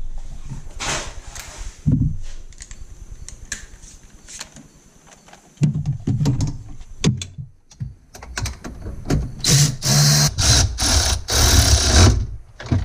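Hand ratchet clicking as a bolt in the engine bay is turned, mixed with knocks and clatter from the tool and hands on metal and plastic parts. The clicking is densest and loudest in quick runs near the end.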